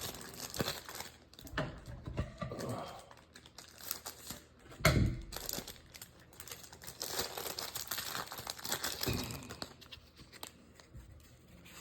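Plastic wrapper of a Topps football card pack crinkling and tearing as it is opened by hand, with a louder crackle about five seconds in.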